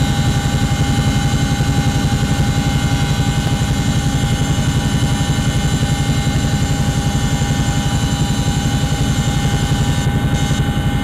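Aircraft engines heard from inside the cabin: a steady, loud drone with a fast, even pulsing in the low end and a few steady whining tones above it.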